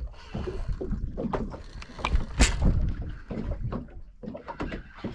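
Irregular knocks and clatters of gear and handling on a small fishing boat, with one louder knock about two and a half seconds in, over a low rumble of wind on the microphone.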